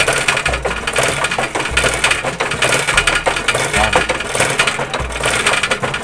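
Common-rail diesel injector from an Isuzu 4HL1 clicking rapidly as the simulator pulses its solenoid and it sprays diesel. The steady clicking shows the replacement nozzle tip is opening properly. A low hum swells and fades about once a second.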